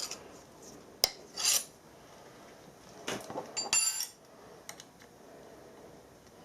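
Steel hand tools clinking and scraping against metal: a sharp click about a second in, a brief scrape just after, and a ringing metallic clink around three to four seconds in.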